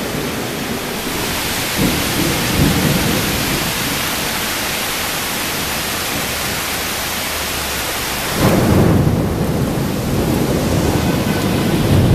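Heavy rain falling with a steady hiss, and thunder breaking in suddenly about eight and a half seconds in and rumbling on.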